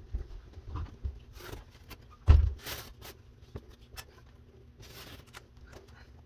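Handling a roll of FibaFuse drywall tape and pressing a strip onto a ceiling seam: scattered rustles and light clicks. A sharp thump comes a little over two seconds in, followed by a brief rustling hiss.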